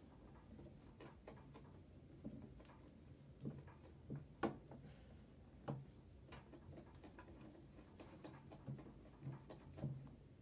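Faint, scattered light clicks and taps, irregular and a second or so apart, from small parts being handled while a sewing machine is serviced.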